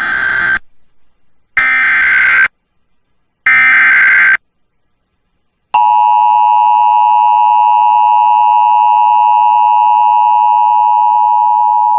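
Emergency Alert System broadcast on the radio: three bursts of SAME digital header data, each about a second long with short silences between. About six seconds in, the steady two-tone EAS attention signal begins, opening an alert for a severe thunderstorm warning.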